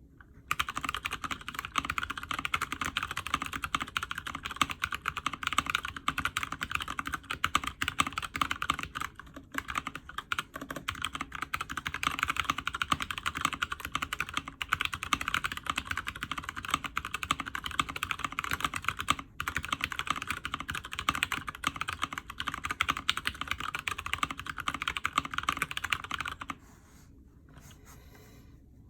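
Continuous typing on an Alice-layout split mechanical keyboard in a frosted acrylic case, with lubed, retooled Cherry MX Brown tactile switches and PBT keycaps. The keystrokes pause briefly twice and stop a couple of seconds before the end.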